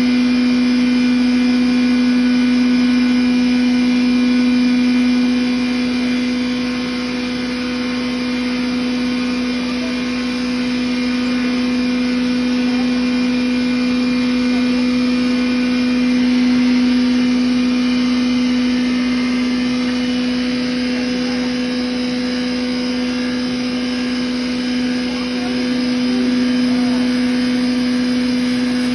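10 HP rice-husk and cattle-feed grinder running loaded, grinding grain fed into its hopper. It gives a loud, steady machine hum held at one pitch, with a higher whine over it.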